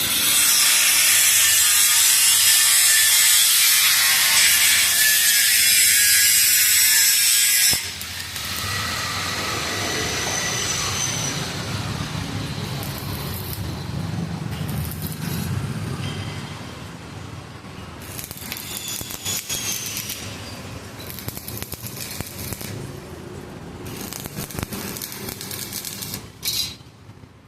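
Electric arc welding on gate hinges: a loud steady hiss and crackle for about eight seconds that cuts off suddenly, followed by quieter, irregular crackling with scattered clicks.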